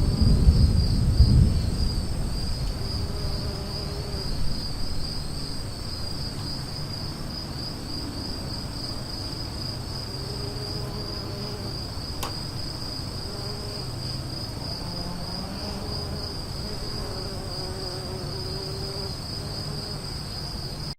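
Steady, high-pitched chorus of crickets trilling, with a low rumble of the storm dying away over the first few seconds. A single sharp click about twelve seconds in.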